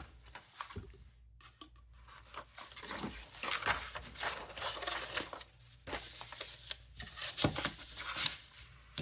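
Paper and plastic packaging rustling and crinkling as it is handled, with irregular sharp crackles. It is fairly quiet at first and busier from about two and a half seconds in.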